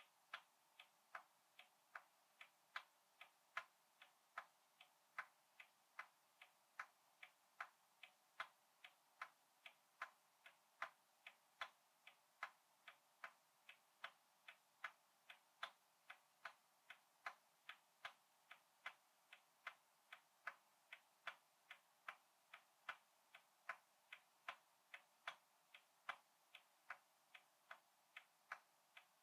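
Ticking of a 100-year-old antique clock: a steady, even tick-tock of about two and a half beats a second, the beats alternating stronger and weaker.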